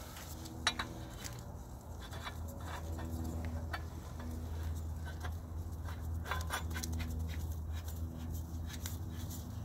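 A steady low hum, with a couple of short metallic clicks as a steel floor flange is twisted by hand onto a threaded black iron pipe.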